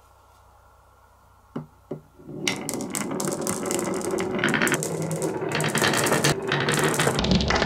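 Glass marbles on a wooden HABA slope marble run: two light clicks, then from about two seconds in a dense, continuous clatter as many marbles roll down the winding wooden grooves and knock against each other and the track walls.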